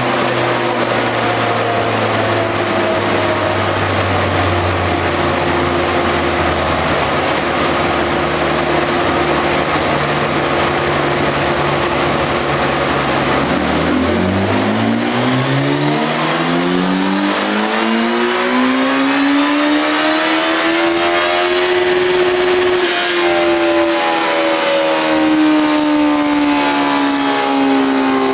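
Motor vehicle engine running at a steady low pitch, then accelerating smoothly for about eight seconds with the pitch climbing, then easing off slightly near the end.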